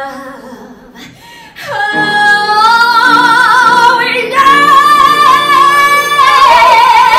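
A woman singing into a microphone, belting long, loud held notes with vibrato after a softer opening, stepping up to a higher note midway and sliding down near the end.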